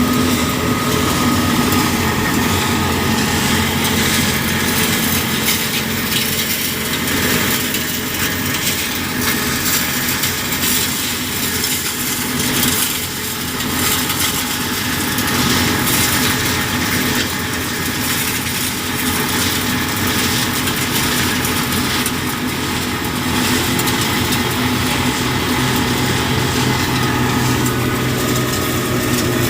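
Road-repair machinery running steadily with a harsh, noisy engine sound, its low hum shifting lower near the end.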